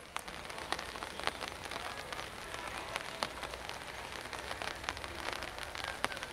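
Steady rain falling, with many scattered sharp ticks of individual drops landing close by.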